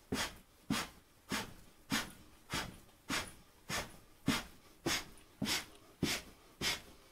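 Sharp, rhythmic breaths forced out through the nose, a little under two a second, each paced to a jogging step and punch.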